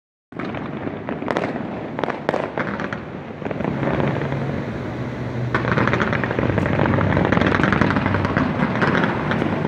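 Fireworks display: a continuous barrage of bangs and crackling, with several sharp reports in the first few seconds and a denser crackle from about halfway through.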